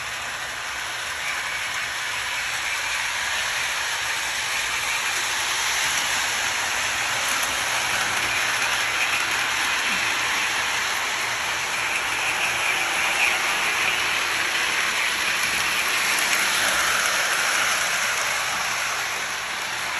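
Lionel O-scale Christmas train running on metal three-rail track, a steady whirring rush of its motor and wheels. It grows louder as the train comes close, about halfway through, then eases off just before the end.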